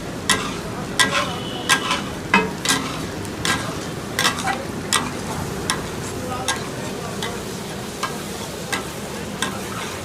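Metal spatulas clanking on a flat iron tawa griddle, takatak style, with sharp strikes about every half second to second over a steady sizzle of food frying.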